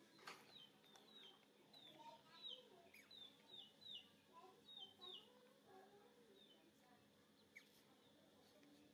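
Faint chirping of a small bird: a run of short, high, falling chirps, about two a second, that dies away after about six seconds.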